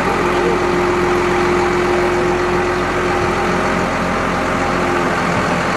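Engine of a BMC truck-mounted crane running steadily, with a steady tone over the engine that stops about five seconds in.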